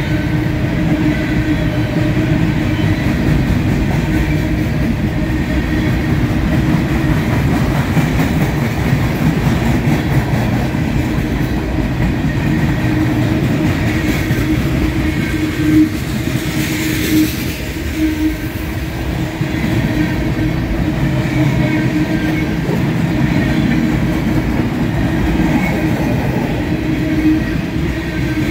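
Freight cars of a mixed manifest train rolling past close by: a steady rumble and clatter of steel wheels on the rails, with a brief hiss about two-thirds of the way through.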